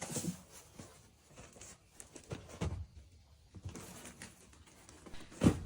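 Light handling noises: scattered small clicks and rustles, with one louder thump near the end.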